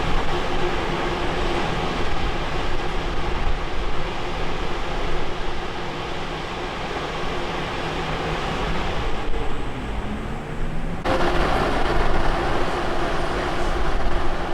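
Boiler flue giving off a steady mechanical drone with a low hum of several steady tones. The sound changes abruptly about 11 seconds in and the drone carries on.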